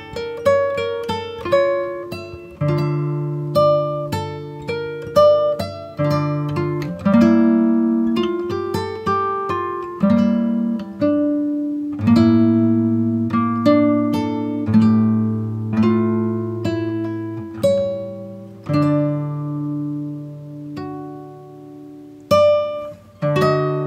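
Background music on a plucked string instrument, single notes and chords that strike sharply and ring out.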